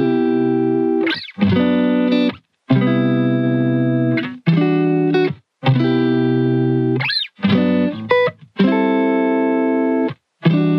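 Background music of held chords, each cut off by a short gap every second or two.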